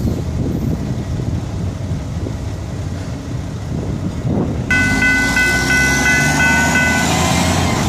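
Low rumble of a Florida East Coast Railway rail train running past on the track. About two-thirds of the way in it changes abruptly to a grade-crossing warning signal ringing a steady high tone, which stops near the end, over a dump truck's diesel engine running as it drives across.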